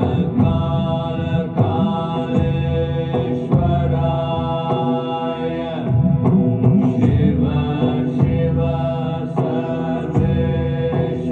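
Mantra chanting set to music: voices hold long, gliding notes over a steady low drone.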